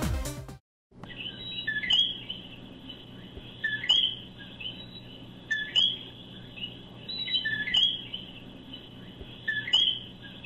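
Music ends in the first half-second. After a short gap, coquí frogs call a two-note 'co-kee', low then high, about every two seconds over a faint low hum.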